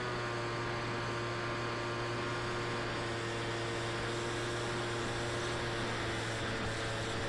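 Electric motor and propeller of a Versa flying wing running steadily in flight, a steady hum over air rushing past, as picked up by the plane's onboard camera. Its pitch dips slightly right at the start, then holds.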